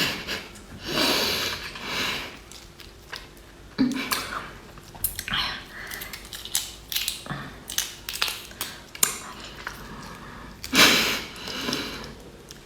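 Repeated hard sucking and slurping at a tiger prawn's shell, straining to draw out the meat, in several hissy bursts with small clicks between them. The loudest bursts come about a second in and around eleven seconds in. The meat is tight and does not come out.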